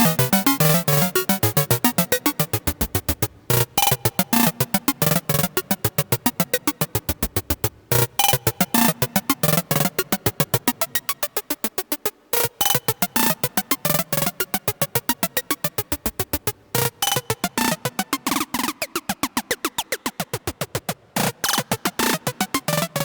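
Dreadbox Dysmetria analog synthesizer module playing a fast sequence of short, bright, plucky notes, about five or six a second, with the pitch shifting from note to note. A light reverb sits on the sound.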